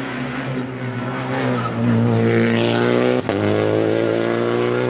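Rally car engine at full throttle, growing louder over the first two seconds as the car comes closer. A quick gearshift a little over three seconds in briefly cuts the sound before the engine pulls hard again.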